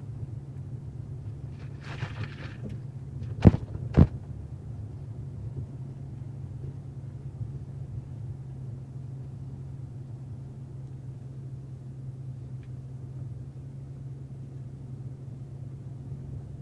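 Steady low drone of a car driving, heard from inside the cabin, with two sharp knocks about half a second apart a few seconds in.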